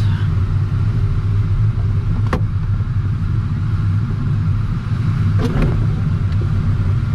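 Steady low rumble of airflow in an LS-4 glider's cockpit, air rushing past the canopy and buffeting the microphone in heavy turbulence. Two short sharp knocks come about two seconds and five and a half seconds in.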